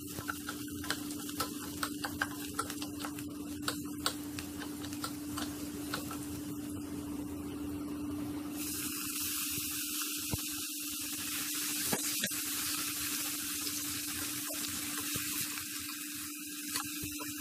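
Chopped aromatics sizzling in oil in a stainless steel pot, with a wooden spatula clicking and scraping against the pot. About eight and a half seconds in, the sizzle grows louder and brighter as raw ground beef goes in and is stirred, all over a steady low hum.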